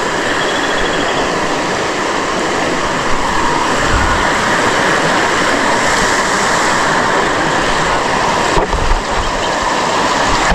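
Steady rush of a waterfall or fast stream, with a couple of brief low bumps on the microphone about four and nine seconds in.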